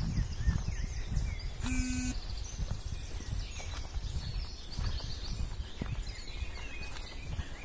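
Small birds singing and chirping in woodland, with quick high trills, over steady low rumbling noise on the microphone. A short buzzy tone sounds about two seconds in.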